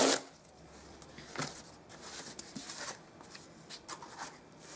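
Tear strip of a cardboard book mailer ripped open in one short tear at the start, followed by faint scattered rustles and crinkles of the cardboard as the package is handled.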